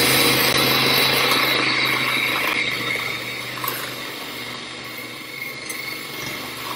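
Small electric mini food chopper running, its motor whining and blades churning frozen banana chunks with a little almond milk into soft banana ice cream. The steady sound eases gradually quieter after about two and a half seconds.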